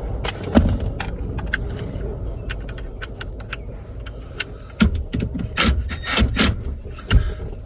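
Handling noise as a phone is set into a plastic cup holder, with a string of clicks, knocks and rattles and a low rumble of the mic being bumped. A cluster of louder knocks comes in the second half.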